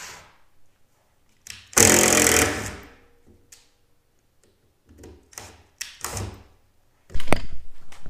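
Cordless drill run in short bursts, boring into a white plastic part, with clunks and knocks of plastic parts and tools being handled on the bench between.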